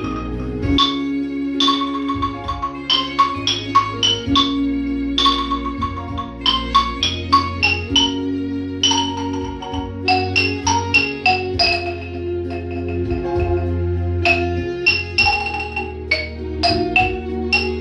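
Music from a percussion ensemble: a melody struck on xylophone-type mallet bars, each note ringing briefly, over a sustained accompaniment with a bass line.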